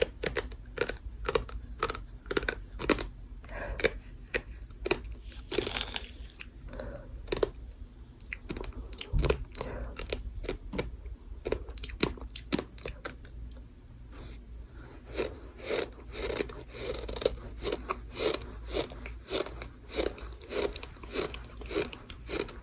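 Gritty bird sand being chewed close to the microphone: a dense, continuous run of sharp crunches, thinning briefly about halfway through.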